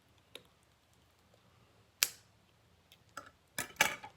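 Scissors snipping at the plastic ties on toy packaging: a single sharp snip about two seconds in, then a quick cluster of clicks and rustles near the end.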